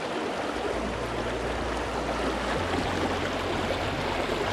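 Shallow stream water rushing steadily over rocks, close to the microphone.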